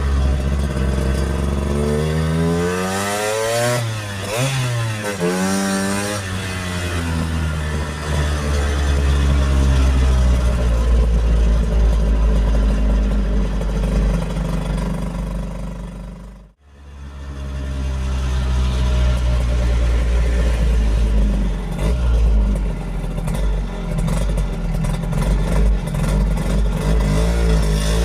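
1964 Lambretta Series 3 scooter's single-cylinder two-stroke engine running on the road, revving up and down several times in the first few seconds, then pulling steadily. The sound cuts out abruptly for an instant a little past halfway, then the engine carries on.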